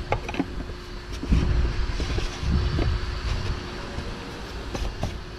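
Hands fitting an oil filter cartridge and its housing cap into place: a few light clicks over low rumbling handling noise, with a faint steady hum underneath.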